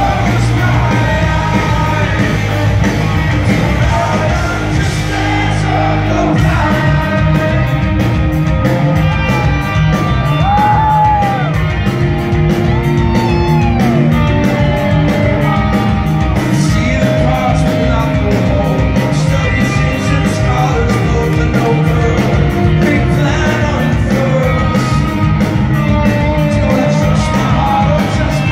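Rock band playing live and loud in a large hall: guitars and sung vocals over a sustained low chord, with a steady fast drum beat starting about six seconds in.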